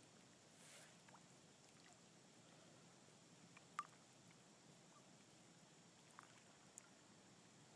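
Near silence: faint steady background hiss with a few tiny clicks.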